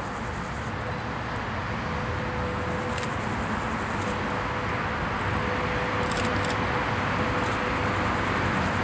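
VL80S twin-section AC electric locomotive hauling a freight train as it approaches: a steady running din that grows gradually louder, with a faint steady tone over it and a few light clicks.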